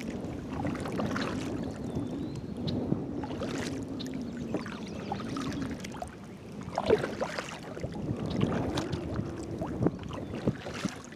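Kayak being paddled: paddle blades dipping and splashing in the water with irregular strokes, and water running along the hull.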